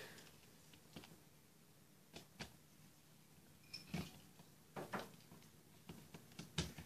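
Faint scattered clicks and knocks, several in a row about a second apart, over a quiet room with a low hum.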